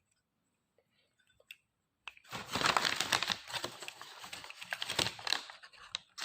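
Plastic wrapping crinkling and rustling as it is handled and pulled off a glass mason jar, starting about two seconds in after a near-quiet stretch with a few faint clicks.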